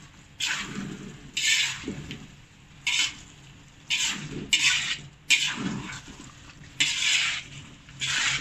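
A cooking utensil scraping and stirring in a pan, in strokes about once a second, turning boiled potato cubes and mock meat through a thick curry masala.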